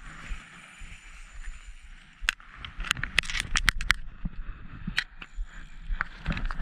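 Sharp clicks and knocks from handling an ice-fishing rod and reel, most of them bunched together in a second-long cluster around the middle. Under them run a steady hiss and a low rumble of wind on the microphone.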